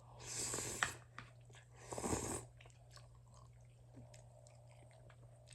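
Close-miked eating of Vifon instant pho rice noodles: a loud slurp right at the start and a second one about two seconds in, followed by soft wet chewing clicks.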